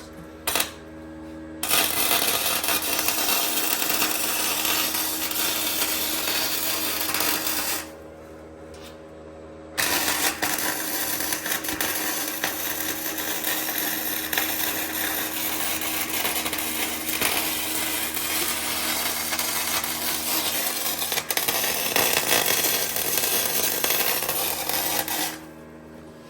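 Flux-core wire-feed welder arc crackling while laying weld beads: a brief blip, then two long runs of about six and fifteen seconds with a short pause between.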